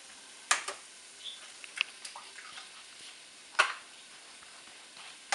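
Eggs cracked against the rim of a bowl: a few sharp taps, the loudest about half a second in and again about three and a half seconds in. Under them, the faint sizzle of rice and onion browning in butter in a pan.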